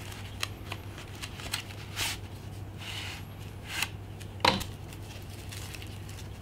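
Small cardboard box being opened by hand and a foam-packed screen assembly slid out of it: scattered light scrapes, rustles and taps, the loudest about four and a half seconds in, over a steady low hum.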